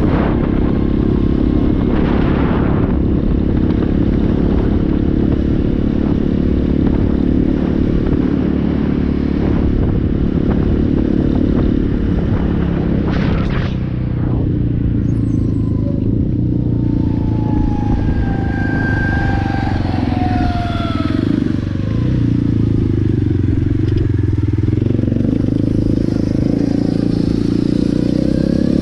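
Apollo 250RX dirt bike engine running steadily while being ridden, its pitch rising and falling with the throttle partway through, with a couple of brief knocks.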